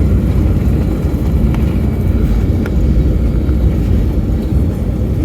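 Steady deep rumble inside a Boeing 757's cabin during the landing rollout under full braking: engine noise and the wheels running on the runway.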